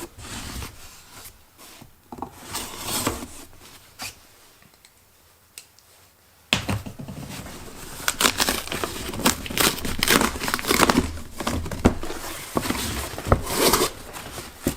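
Packing tape being torn off a cardboard box, with crinkling and rustling of the packaging. Scattered tearing at first and a quiet lull in the middle, then dense, continuous tearing and rustling from about six and a half seconds in.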